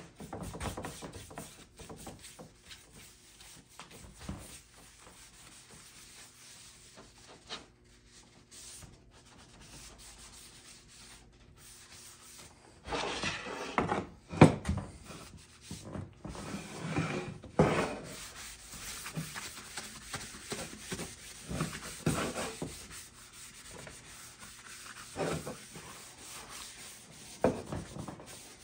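Bristle brush stroking wood stain onto an oak panel, a soft scratchy brushing. About 13 seconds in come louder knocks and scrapes as the wooden panel is lifted and turned over on the bench, followed by intermittent strokes of a rag wiping stain across the wood.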